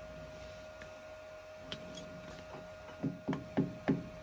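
Copper-faced mallet tapping a piston held in a lathe's four-jaw chuck to knock it central: a few faint clicks, then four quick light taps about a third of a second apart near the end, over a steady faint hum.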